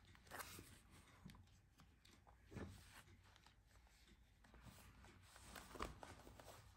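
Near silence with a few faint rustles and light taps from cardstock album pages and a faux-leather spine strip being handled and fitted together.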